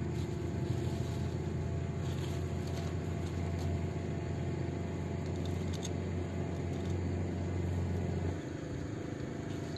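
A steady low motor rumble that cuts off abruptly a little past eight seconds in, with a few faint clicks over it.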